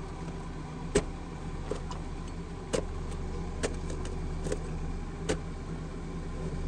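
Irregular sharp knocks, about six over several seconds, as a hatchet chops into a dense mass of tree roots choking a drain pit. A steady low engine hum runs underneath.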